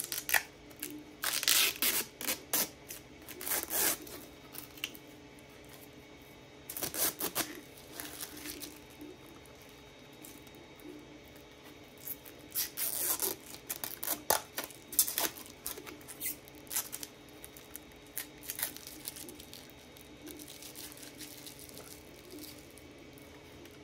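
Handling noise of a metal SSD caddy and small plastic parts being fitted into a server's slim optical drive bay: rubbing, scraping and clicking in irregular bursts, with quiet gaps between.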